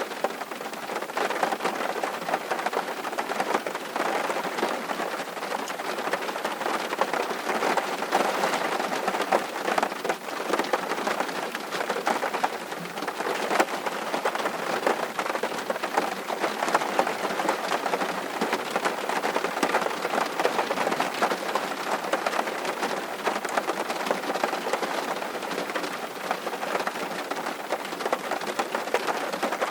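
Steady rain falling and pattering on surfaces, a dense even hiss of many small drop impacts.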